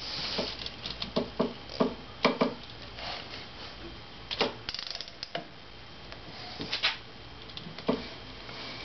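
Metal hand tools at work on a motorcycle's primary drive: irregular sharp clicks and clinks of a socket wrench and ratchet against the clutch and compensator hardware, with a quick run of ratchet ticks near the middle.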